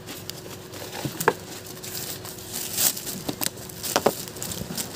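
Plastic bags and wrappers crinkling and rustling, with scattered light clicks and knocks.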